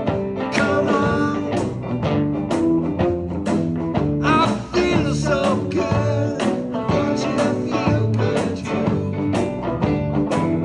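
A live garage R&B band playing electric guitars, keyboard and drums, with a steady drum beat.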